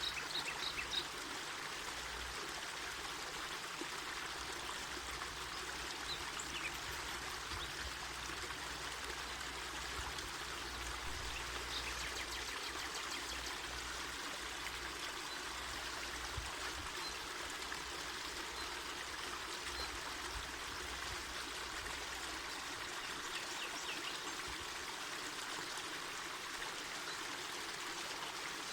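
Mountain forest river rushing and splashing steadily over rocks.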